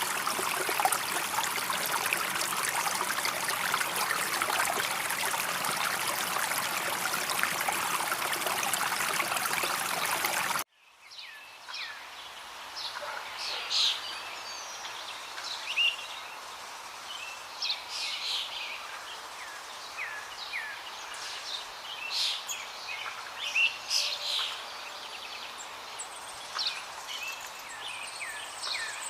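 Water running or spraying steadily, cutting off suddenly about ten seconds in. Small birds then chirp repeatedly over a quiet outdoor background.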